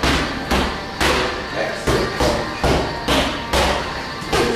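Repeated heavy thuds, about two a second and unevenly spaced, each a sharp knock with a dull low thump under it.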